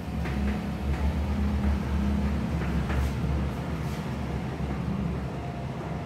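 Chalk tapping and scratching on a chalkboard as words are written, a few faint strokes over a steady low hum that is the loudest sound.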